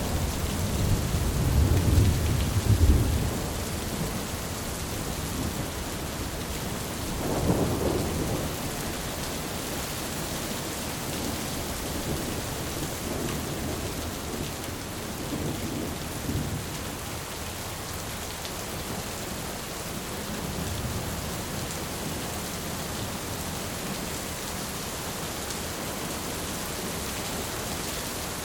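Heavy rain pouring steadily, with rolling thunder that rumbles loudest over the first few seconds and again briefly about a quarter of the way in, then fades to faint distant rolls under the rain.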